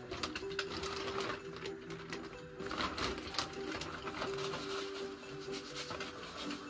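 Plastic bag crinkling and rustling as gloved hands work it, over steady background music.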